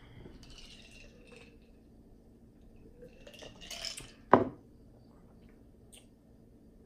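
Light clatter of dishes and tableware on a table, with one sharp knock about four seconds in that is the loudest sound, and a small click near the end.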